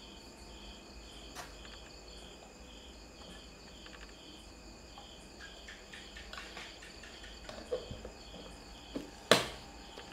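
Cricket chirping steadily, about two pulses a second, with a few light clicks and one sharp knock near the end.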